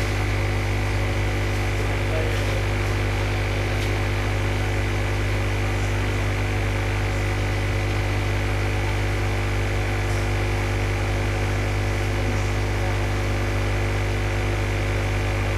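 Steady electrical mains hum: a constant low buzz with a thin high whine over it, unchanging throughout.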